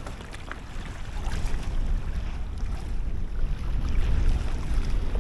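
Wind gusting across the microphone, a fluctuating low rumble that grows louder about a second in.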